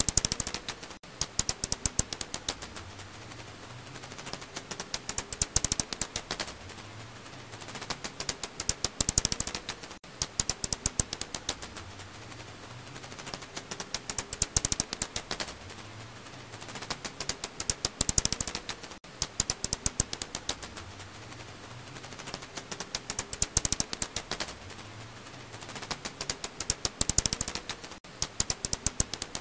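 Black house bat echolocation calls, heard as rapid trains of clicks that come in bursts every few seconds.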